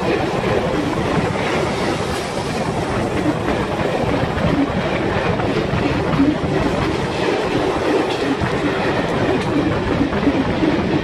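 Freight train wagons rolling directly over the track, heard from between the rails beneath them: a loud, steady rumble of steel wheels on rail with rapid clicks running through it.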